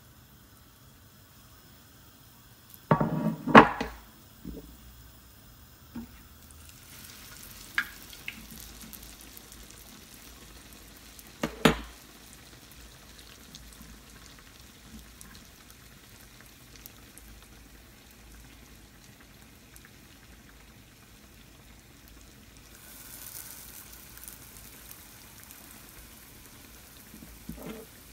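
Sfenj dough rings deep-frying in hot oil in a pan, a faint steady sizzle and bubble that sets in about six seconds in and swells briefly near the end. A few sharp knocks and clatter stand out above it, loudest about three seconds in and again near twelve seconds.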